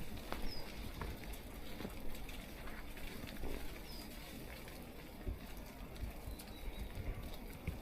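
Outdoor ambience: a steady low rumble with scattered faint clicks, and a small bird giving short high chirps three times.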